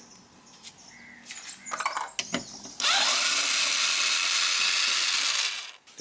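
A few light plastic clicks, then a power drill-driver with a screwdriver bit spins up and runs steadily for about three seconds before stopping suddenly, backing a door-panel screw out.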